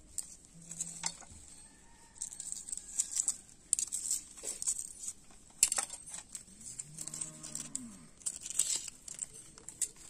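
Grilled chicken pieces being pushed off skewers onto a banana leaf: repeated clicks, scrapes and leafy crinkles. Past the middle a cow moos once, a low call that rises and falls over about a second and a half.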